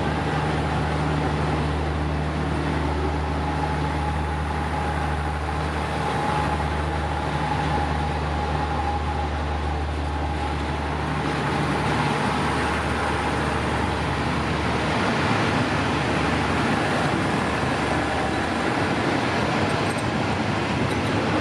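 Diesel locomotive running with a steady low hum. About halfway through, the hum gives way to a broader, slowly rising rumble of a train beginning to roll.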